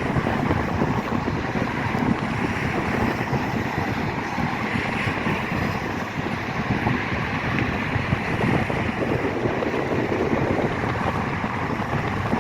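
Steady wind buffeting the microphone over a continuous vehicle rumble.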